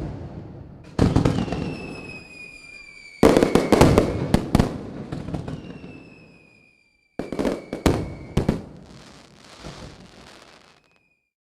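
Fireworks going off in three loud bangs, each followed by a burst of crackling that fades away. Two long, slightly falling whistles sound between the bangs.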